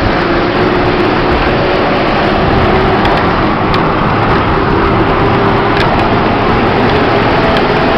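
Bus engine and road noise heard from aboard the moving bus: a loud, steady rushing with an engine hum underneath, and a couple of faint clicks.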